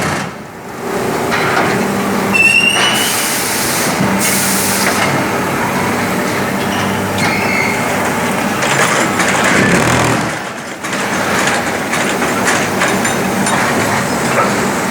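Pumice concrete block-making machine running: a loud, continuous mechanical din over a steady low hum, with a short high squeal about two and a half seconds in and a burst of hiss soon after.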